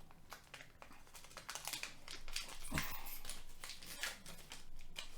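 Foil trading-card pack wrapper crinkling and crackling in the hands as it is worked open, with a soft knock about three seconds in.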